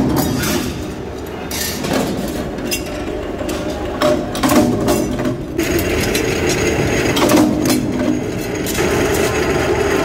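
Flywheel-driven mechanical power press running with a steady machine drone, its die striking several times at uneven intervals as it cuts and pierces sheet-steel seat-base plates.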